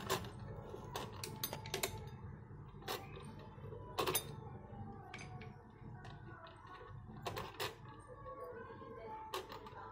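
Vintage Singer hand-crank sewing machine being turned by its crank, its mechanism giving irregular clicks and knocks. The loudest is a double knock about four seconds in.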